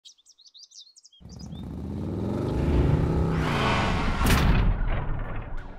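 Birds chirp briefly, then a motor vehicle's engine rumble swells as it approaches, with its pitch rising and falling. It is loudest past the middle, where a brief rush of noise comes, and then eases off as it passes.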